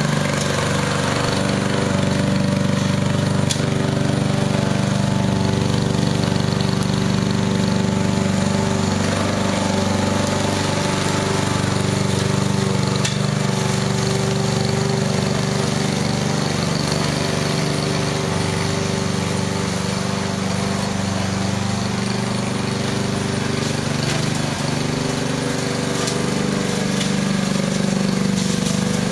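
Small gasoline lawn mower engine running steadily on a radio-controlled robot mower as it mows grass.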